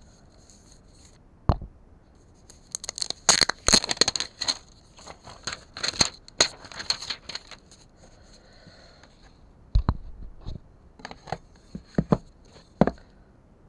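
Smartwatch box packaging being torn and scratched open by hand: a dense run of quick tearing and crinkling strokes in the middle, then a few separate sharp scrapes near the end.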